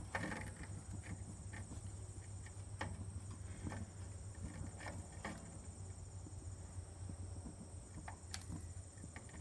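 Sparse light clicks and taps over a low steady hum, from an electric arc lighter and gas grill knob being worked to light the grill's back burner.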